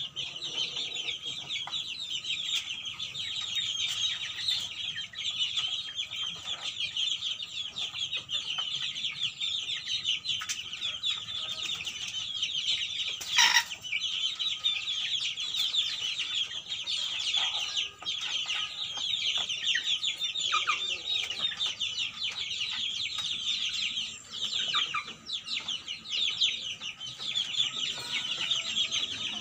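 A coop of young kampung chickens peeping and cheeping continuously, many high-pitched calls overlapping. There is one sharp knock about halfway through.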